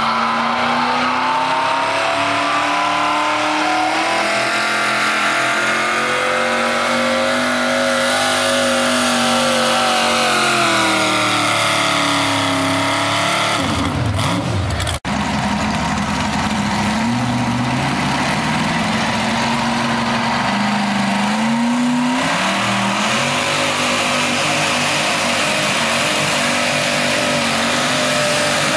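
Modified pulling tractor's racing engine running at high revs under load as it drags the sled: the pitch climbs, holds, then sags as the tractor slows. After a break about halfway through, a second modified tractor's engine revs under load, its pitch rising and falling in steps.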